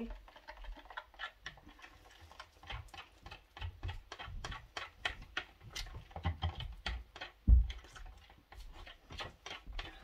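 Resin being stirred in a plastic mixing cup: irregular light clicks and taps of the stirrer against the cup, with one louder thump about seven and a half seconds in.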